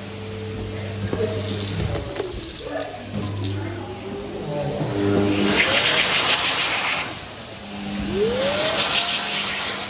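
PHS Airstream Vitesse hand dryers running: a low motor hum, then rushing air in two spells, the second after a rising whine as a motor spins up about eight seconds in.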